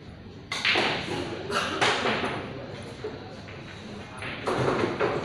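Pool-hall sounds: three sudden knocks of billiard balls on the surrounding tables, each trailing off in a short clatter, with people talking in the background.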